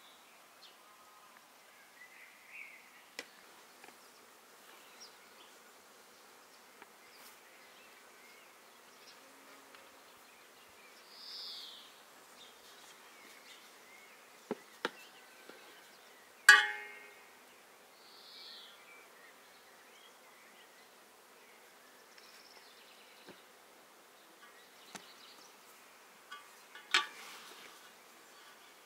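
Scattered light knocks and clicks over a quiet outdoor background with a few short, high chirping or buzzing calls. About two-thirds through, one loud clank of a hard, metal-sounding object rings briefly. Another sharp knock comes near the end.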